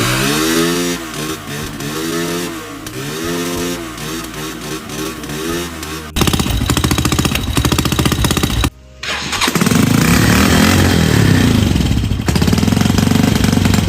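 Three-wheeled motorcycle's engine running and being revved up and down in short edited clips, cut abruptly about six seconds in and again near nine seconds. It now runs after a blown fuse was replaced and the air filter taken off, answering a couple of big throttle blips.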